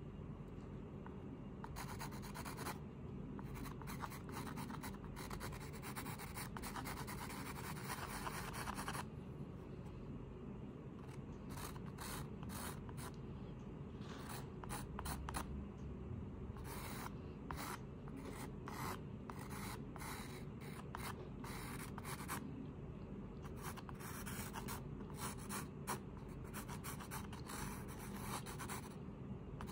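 Pencil scratching across textured canvas in sketching strokes: a long stretch of continuous shading from about two to nine seconds in, then clusters of short, quick strokes. A steady low hum runs underneath.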